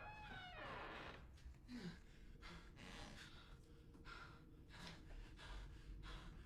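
Near silence on a film soundtrack: an eerie gliding tone fades out in the first half second, leaving only faint, irregular breath-like sounds in a hushed lull.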